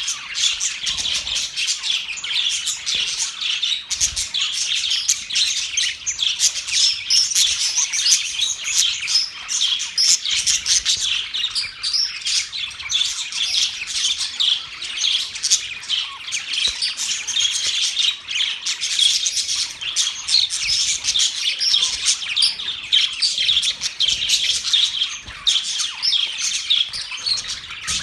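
Budgerigars warbling and chirping without a break, a dense mix of rapid high chirps and chatter from several birds.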